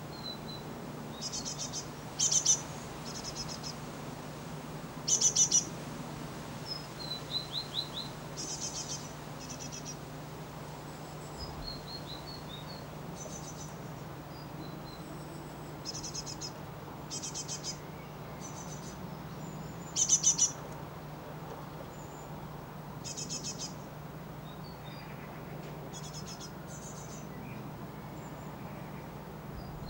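Great tits calling: many short bursts of rapid, high chirping notes repeated at irregular intervals, three of them much louder than the rest. A steady low hum runs underneath.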